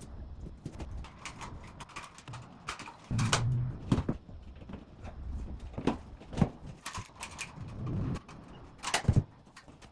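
Irregular knocks, taps and clicks of hands-on ceiling renovation work, with a short low buzz about three seconds in.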